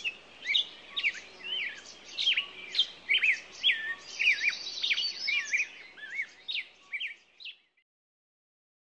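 Small songbirds chirping rapidly: many short, sweeping chirps, with a high, buzzy trill about halfway through. The sound cuts off suddenly near the end.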